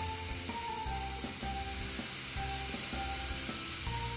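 Background music, a melody of held notes over a pulsing bass, with the steady hiss of steaks sizzling on a hot gas grill underneath.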